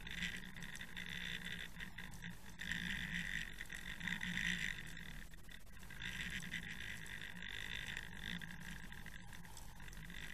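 Muffled underwater noise picked up by a camera in a waterproof housing towed on a fishing line: water rushing and gurgling past the housing, swelling and fading several times over a low hum.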